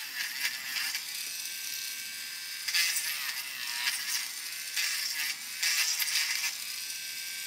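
Small USB-rechargeable three-speed rotary tool running with a 1.2 mm drill bit used as a milling cutter, grinding through a plastic model part. The steady high motor whine turns louder and rougher in short spells about three, five and six seconds in as the bit bites into the plastic.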